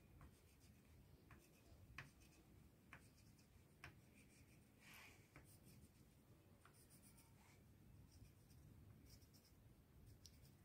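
Faint scratching of a wax crayon on paper as short dashes are drawn one after another, with light ticks about once a second.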